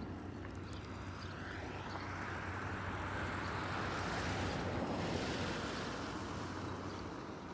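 A road vehicle passing by: a rushing noise that swells to a peak about four to five seconds in and then fades away, over a steady low hum.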